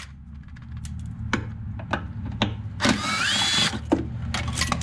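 Cordless power tool on a socket extension spinning out small bolts: a short whir about three seconds in that rises in pitch and then holds, with scattered clicks of metal parts.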